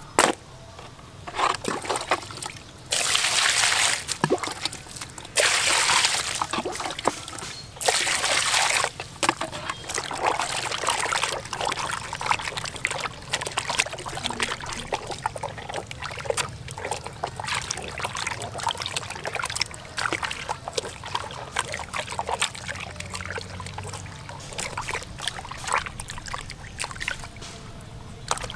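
Cow intestines being washed by hand in a plastic basin of water: three loud bursts of splashing in the first nine seconds, then steady sloshing and squelching as hands knead and rub the guts in the water.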